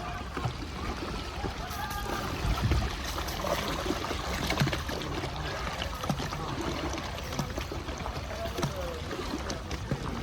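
River water trickling and lapping close by around a coracle, with faint voices in the background.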